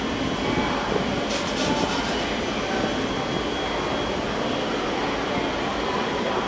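DKZ16 metro train at an underground platform, with a steady rushing noise from the train and station. The train starts to pull out of the station in the second half.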